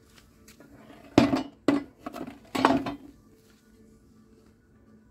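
Garden rake's fanned tines scraping across paving stones: three short rough scrapes in quick succession.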